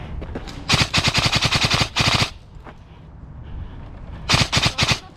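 Airsoft electric rifle firing rapid full-auto bursts, loud and close: a long burst from about a second in, a short one right after, and another burst near the end.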